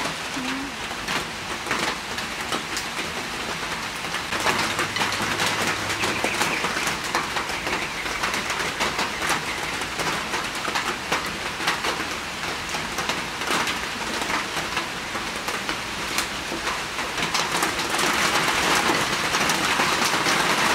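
Steady rain falling on wet ground and surfaces close by, with many individual drops ticking sharply. It grows a little louder about three-quarters of the way through.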